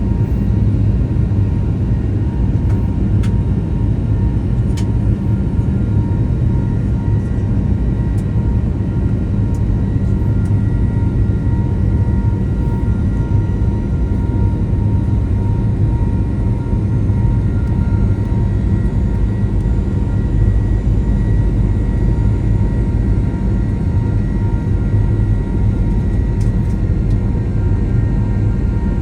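Steady cabin noise of a Boeing 737-900 in flight: its CFM56-7B jet engines run with a low rumble and a faint steady whine.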